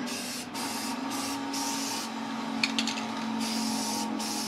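Aerosol can of Rust-Oleum Professional gloss black paint hissing in short spray bursts onto a Dana 44 axle, with a pause in the middle. There are a few sharp clicks about two and a half seconds in, over a steady low hum.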